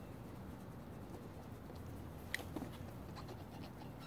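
Faint scratching and rustling of a hand rubbing a puppy's head and fur, with one small click a little over two seconds in.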